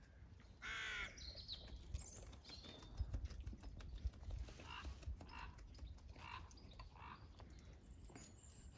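A crow caws once, loud and brief, about a second in. A few fainter short calls follow, with low bumps and scuffling close to the microphone in the middle.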